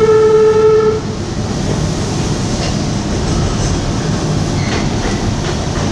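Toronto subway train running on its track, with a steady single-note horn sounding for about the first second and then cutting off. After that there is only the even rumble of the train's wheels and motors.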